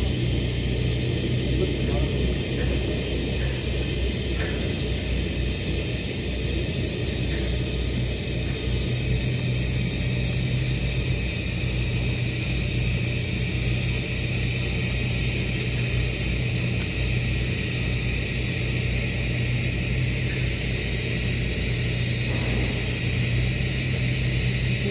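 Arc welding on carbon steel in the horizontal position: a steady arc hiss over a constant low electrical hum, with a few faint ticks.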